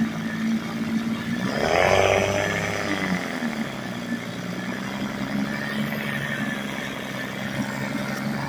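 1947 Elgin 3.5 hp two-stroke outboard motor running in a test tank on its freshly rebuilt carburetor (new needle, seat and float). It runs steadily, picks up speed briefly about two seconds in, then settles back.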